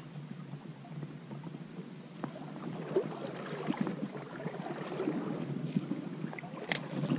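Creek water sloshing and rustling close to the microphone, growing louder about three seconds in, with one sharp click near the end.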